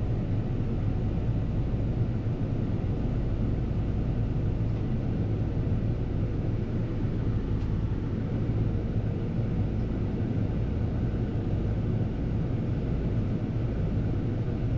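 Diesel engine of a Bergmann C815s tracked dumper running steadily, a constant low hum with no change in pace.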